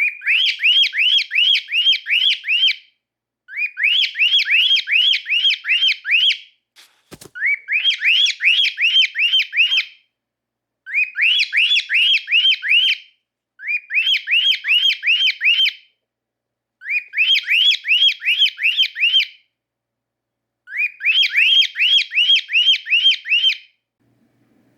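Cockatiel calling in runs of quick, rising chirps, about four a second, each run a couple of seconds long and repeated several times with short pauses between.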